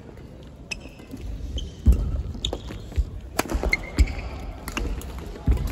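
Badminton rally: sharp cracks of rackets hitting the shuttlecock, short high squeaks of court shoes on the wooden floor, and heavy thudding footfalls. It picks up about a second in.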